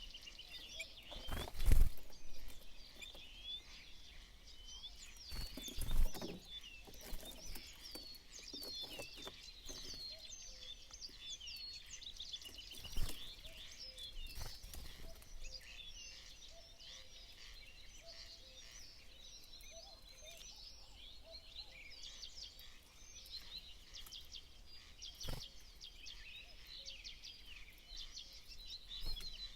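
Many small birds chirping and twittering without a break, with high, quick overlapping calls. Sharp knocks sound every so often, the loudest about two seconds in and again about six seconds in.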